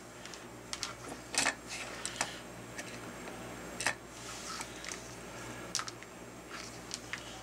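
Scattered light clicks and taps as a small plastic battery box and its wires are handled on a cutting mat, over a faint steady low hum.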